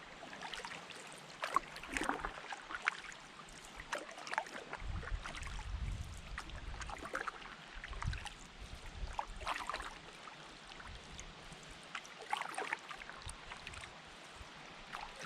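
Canoe being paddled on a fast river: water splashing and trickling around the paddles and hull, with many small irregular knocks and drips.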